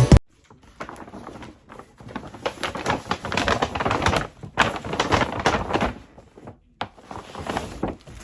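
Packaging being handled and opened: rustling and crinkling with many small clicks and knocks, in uneven bursts with a short pause about six and a half seconds in.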